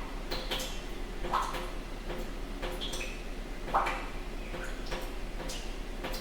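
Rain sound effect: irregular water drops plinking, each a short ringing drip at a different pitch, about one or two a second, over a steady hiss and a low hum.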